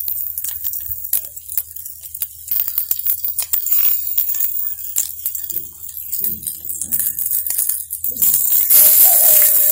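Hot oil crackling and sizzling in a cast-iron pan around raw beef meatballs, a steady hiss full of small irregular pops. The sizzle grows louder and busier near the end as another meatball goes into the oil.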